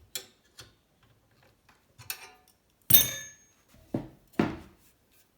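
Metal parts being handled while the steel bicycle frame is being spread: a few light clicks, then a loud metallic clank with a brief ring about three seconds in, followed by two duller knocks.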